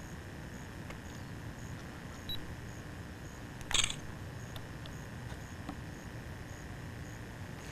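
Handheld camera recording steady hiss and low hum, with a faint repeating high tick, a small click about two seconds in and a short crackle of handling noise near four seconds.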